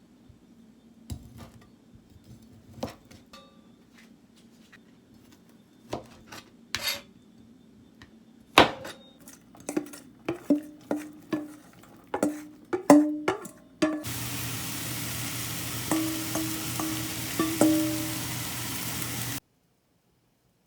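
Metal utensils clinking and tapping against dishes and a pot, getting quicker and louder partway through. About two-thirds of the way in, food starts sizzling in a hot pan while the utensil keeps clinking, and it all cuts off suddenly near the end.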